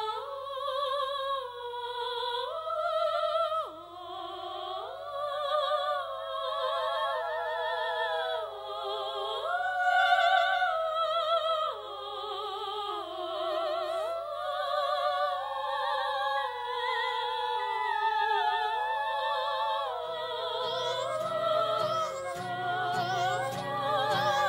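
Music: a slow melody in operatic style, long held notes with strong vibrato. A low accompaniment comes in about two-thirds of the way through.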